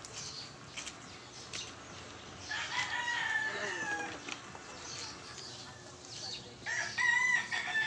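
A rooster crowing twice: a long call about two and a half seconds in and another near the end, each held and then falling away.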